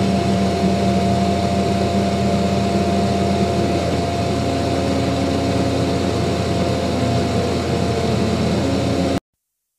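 Wainlux K8 laser cutter and its MD22 air purifier running while the laser cuts card: a steady fan whir with a thin, steady whine over a low hum. It cuts off abruptly near the end.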